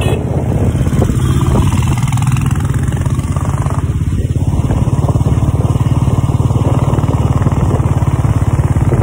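Royal Enfield Bullet 350's single-cylinder engine running steadily while the motorcycle rides along the road, a continuous low rumble with a rapid even beat.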